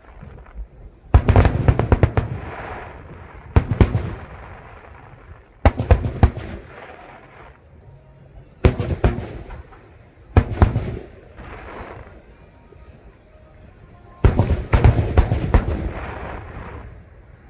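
Aerial fireworks display: shells bursting in sharp clusters of bangs with crackle and rumbling decay, six volleys a few seconds apart, the last one longer.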